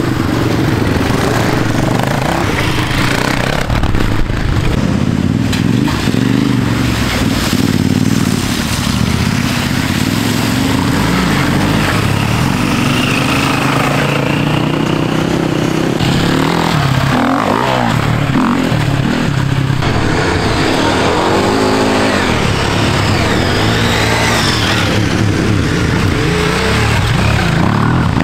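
Off-road motorcycle engines running and revving as the bikes ride past on a muddy trail, the pitch repeatedly rising with the throttle and dropping back.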